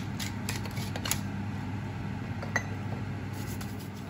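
A hand salt mill turned over a pot of soup, ticking a few times in the first second, then a single light clink a little later, over a steady low hum.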